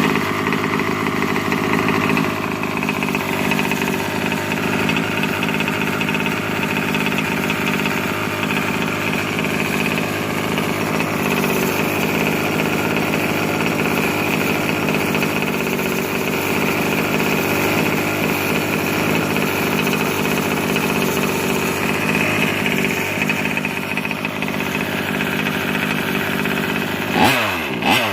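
Small two-stroke gas engine of a 1/5-scale RC truck starting up and then idling steadily with a rapid, even firing pulse. It gives a brief swoop in pitch near the end.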